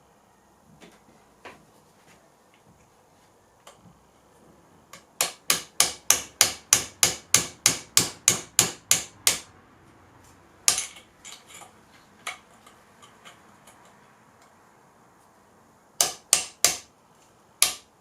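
Hammer tapping on an old headset bolt, driving a star-fangled nut down into a bicycle fork's steerer tube: a fast run of sharp metallic taps, about four a second, then a single harder tap and, near the end, a few more.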